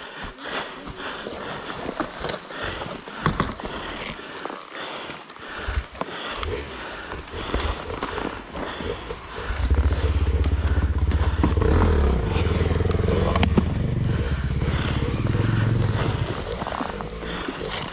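Two-stroke single-cylinder engine of a KTM 250 XC-W enduro motorcycle, running loudly at low revs for about seven seconds from about halfway in, then dropping away. Before it come quieter rhythmic sounds about twice a second.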